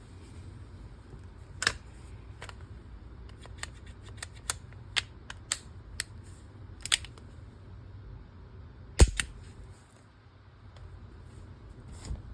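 Sharp metallic clicks from handling a Ruger GP100 10mm revolver: a single click, then a run of about ten clicks roughly half a second apart, and the loudest click about three quarters of the way through.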